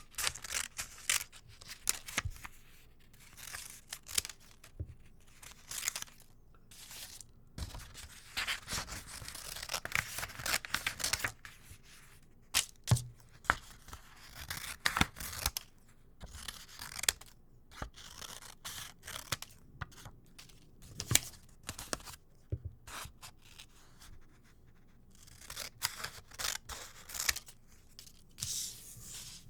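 Scissors cutting, likely through paper or card, in irregular runs of sharp snips and longer slicing strokes with short pauses between.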